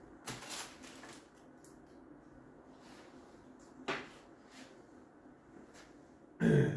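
Handling sounds while working over the roast: a short rustle about half a second in, a sharp click a little before four seconds, and a louder knock near the end.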